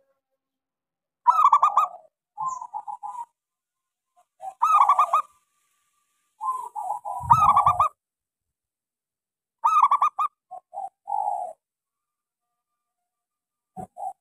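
Zebra dove (local perkutut) in full song, giving rapid stuttering coos in several phrases a few seconds apart. A brief low thud comes about seven seconds in.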